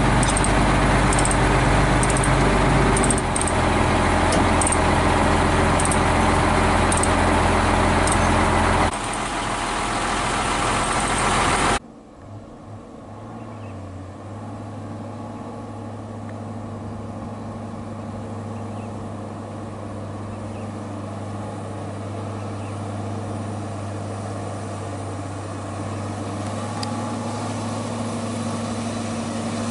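Hino 500 FM320TI truck's diesel engine idling up close, a loud steady rumble with light scattered clicks over it. About twelve seconds in it cuts to the truck hauling the excavator up a dirt haul road farther off, its diesel engine running steadily and growing slowly louder as it approaches.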